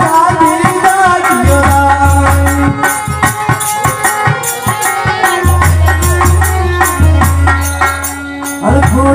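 Live Rajasthani folk devotional music: a singer's wavering melody over held tones, with a drum and rattling percussion keeping a steady beat.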